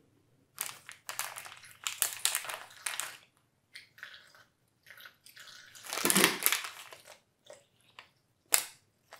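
Someone crunching and chewing Doritos tortilla chips close by, in irregular crackly bursts, loudest about six seconds in.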